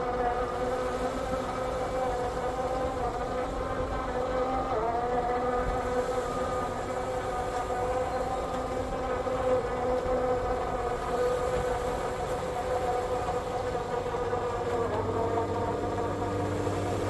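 Sunseeker Predator 60's twin Volvo IPS 1200 diesel engines running with a steady droning buzz. The pitch dips briefly about five seconds in, and the tone shifts a couple of seconds before the end.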